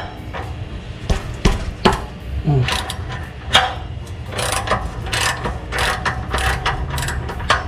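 Socket ratchet wrench clicking as it works a bolt on a car's exhaust where it meets the muffler. The clicks come in irregular runs, closer together in the second half.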